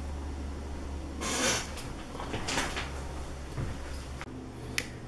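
Handling noise from fingers working inside an opened laptop: a few brief scrapes and rustles, the loudest about a second in, and a couple of light clicks, over a low steady hum that cuts off about four seconds in.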